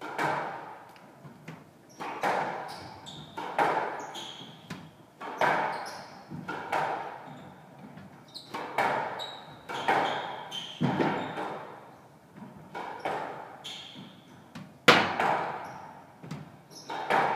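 Squash rally: the ball cracking off racquets and the walls about every one and a half seconds, each hit echoing in the court. Short shoe squeaks on the wooden floor come between the shots.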